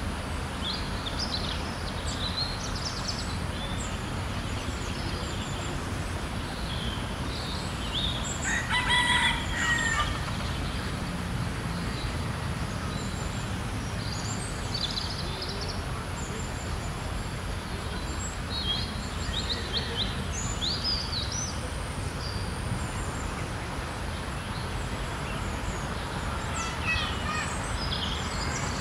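Red junglefowl rooster crowing once, about a third of the way in, over a steady low background rumble. Short high chirps of small birds come and go throughout.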